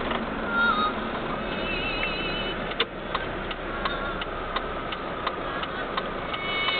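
Steady road-traffic and engine noise, with a regular clicking of about three clicks a second that starts roughly three seconds in, and faint high warbling tones over it.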